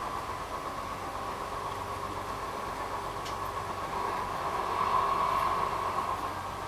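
Light rail car running, heard from inside the passenger cabin: a steady rumble with a constant whine, growing louder about four to five seconds in.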